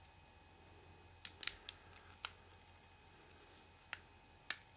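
Sharp clicks of hard plastic toy parts as a key is pushed into a toy blaster and turned: a quick cluster of four clicks over a second in, then single clicks a little after two seconds, near four seconds and near the end.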